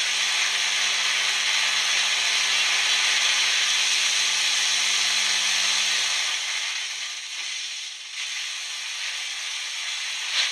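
Electric arc into a cup of salt water, hissing loudly and steadily with a faint hum, as it throws up a flame. The hiss weakens and falters after about six seconds as the flame is turned down, and a sharp snap comes near the end.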